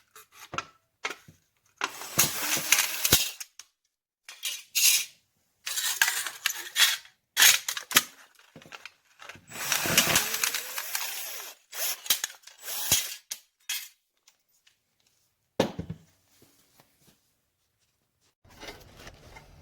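Metal tool parts being handled in short, irregular bursts of rattling and clicking, with pauses between. A faint low hum starts near the end.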